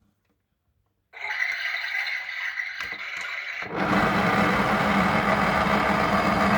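Small electric motor of a toy washing machine starting up about a second in with a steady whine, then running louder with a rattle from about halfway through as the drum turns.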